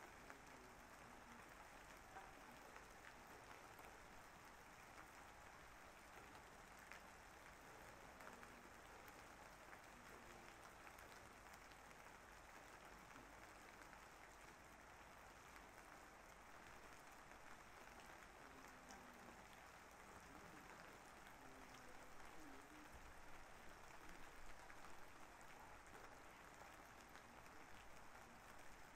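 Faint, steady rain falling, with scattered ticks of individual drops; it grows slightly louder in the last third.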